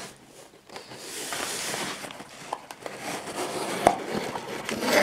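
Cardboard shipping box being opened by hand: packing tape pulled off, crumpled brown packing paper rustling and crinkling, and small knocks of the cardboard flaps, with a louder burst of handling near the end.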